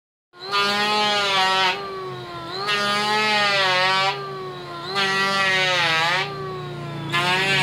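Electric hand planer running and shaving a wooden board. Four times, for a little over a second each, the cutting noise rises sharply as the blades bite, and the motor runs more quietly in between.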